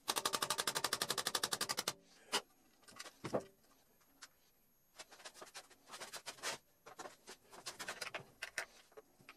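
A screw being driven through a baby gate's plastic hinge bracket into its wooden rail: a loud, even run of rapid clicks, about twenty a second, for the first two seconds, then softer scattered clicks and handling noise as the screwdriver is worked.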